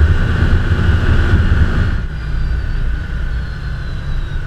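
Side-by-side UTV's engine running under way, heard from the driver's seat, with a steady whine above the low rumble. The rumble eases off about two seconds in.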